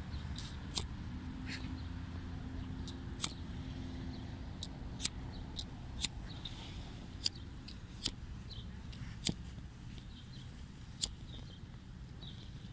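A large dog nosing through tall grass for treats, with sharp clicks and crunches at irregular intervals, about one every second or two, over a steady low rumble.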